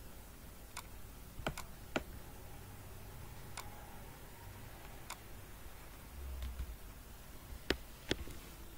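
Scattered clicks of a computer mouse and keyboard, about eight sharp separate clicks spread unevenly, over a faint steady room hiss.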